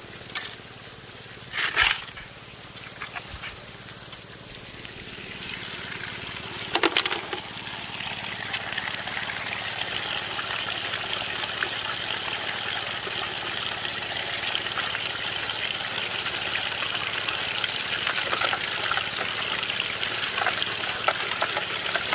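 Water spraying and running through a Gold Fox trommel, with two short knocks in the first seven seconds. From about nine seconds in, a louder crackling wash sets in as a shovel load of gravel is washed through the turning barrel.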